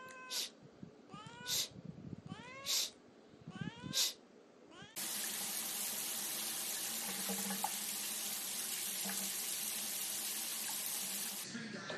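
A cat meows four times, a little over a second apart, each call rising and then falling in pitch. About five seconds in, a shower starts spraying steadily into a bathtub and stops shortly before the end.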